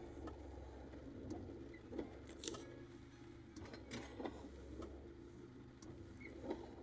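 Car cabin ambience while idling in rain: a steady low engine hum with irregular ticks and taps of raindrops on the roof and windshield.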